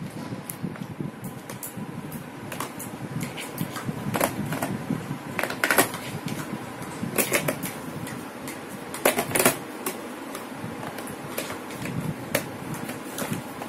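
Irregular plastic clicks and taps as hands work on a toy kitchen set's plastic countertop while batteries are fitted into its compartment, with several sharper knocks in the middle.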